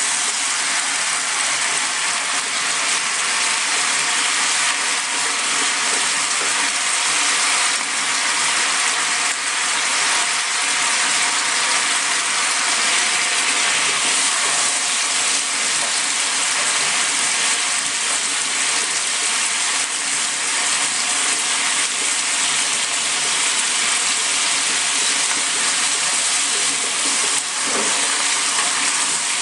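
Chicken frying in a pan, a steady sizzle with no break.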